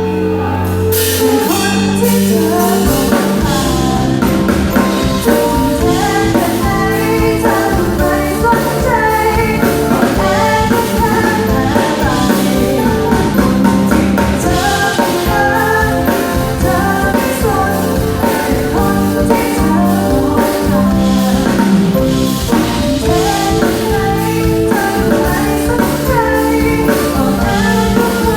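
A woman singing a Thai pop song over backing music with a drum kit; the drum beat settles in a second or two in and runs steadily under the vocal.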